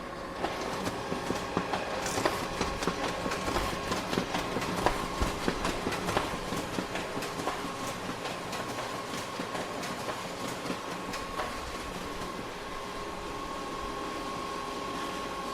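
Photocopier running: a steady mechanical whir with a held high hum and a dense, irregular clatter of clicks.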